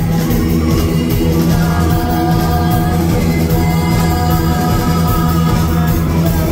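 Rock band playing live: electric guitars, bass guitar and drum kit with cymbals, with a woman singing over held notes.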